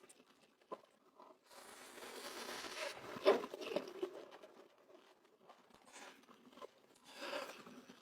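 Close-miked eating sounds: a wrapper crinkling, then a sharp crunchy bite about three seconds in, followed by a few smaller crunches of chewing.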